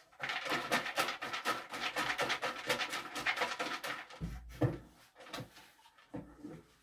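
Paper raffle tickets being mixed for the draw: a rapid rattling rustle for about four seconds, then a few soft knocks and handling sounds.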